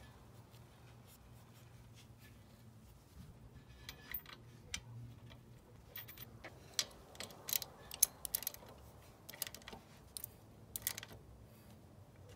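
Scattered sharp clicks and small metallic taps of a scooter's oil drain bolt being threaded in by hand and a ratchet with a 17mm socket being set on it. The clicks come thickest past the middle, over a faint steady low hum.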